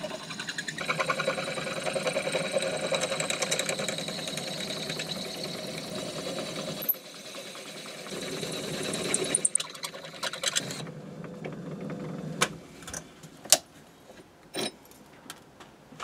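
Myford ML7 lathe running with a twist drill cutting into a block in the four-jaw chuck, a steady machine sound with a fast, even pulsing. About eleven seconds in the running stops, and a few sharp clicks and knocks of tools being handled follow.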